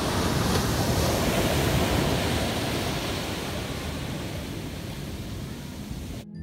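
Ocean surf breaking and washing up on a sandy beach, a dense steady rush that swells at the start, eases slowly and cuts off suddenly near the end.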